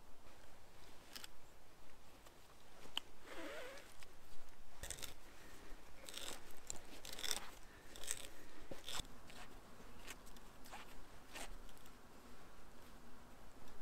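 Hand auger bit, turned by hand, boring down into a freshly cut wooden post: a run of irregular short cutting strokes as the bit bites into the wood.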